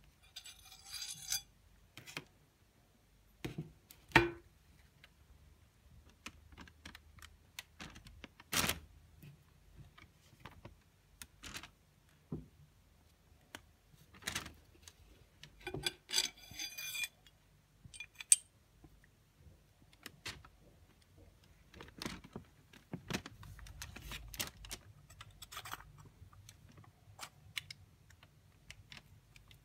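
Parts of a takedown knife being handled and fitted together: the cupronickel guard and fittings sliding on the steel tang, with scattered clicks, clinks and scrapes of metal on metal. Two brief metallic jingles, about a second in and around sixteen seconds, and a few sharper knocks.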